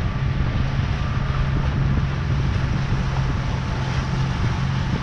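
Outboard motor of a small aluminium boat running steadily at trolling speed, a constant low hum, with wind buffeting the microphone and water rushing past the hull.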